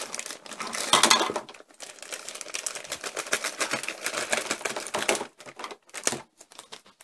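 Clear plastic bag crinkling and rustling as Play-Doh tubs are pulled out of it; the crackle thins to a few scattered crinkles about five seconds in, then stops.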